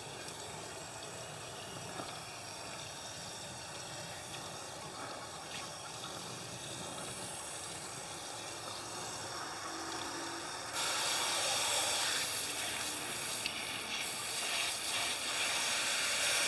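Water spraying from a garden hose's spray nozzle onto a freshly plucked chicken and the wet wooden table, rinsing off stray feathers. It is a steady hiss and spatter that grows louder and brighter about eleven seconds in.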